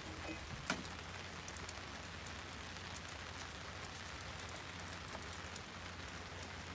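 Steady rain falling, with scattered single drops ticking throughout.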